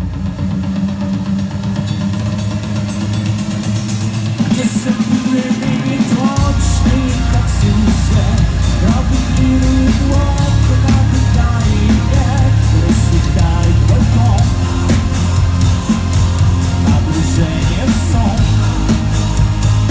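Live rock band playing a song at a soundcheck, with drum kit and electric guitars. A voice starts singing about five seconds in, and the bass comes in heavily a little later.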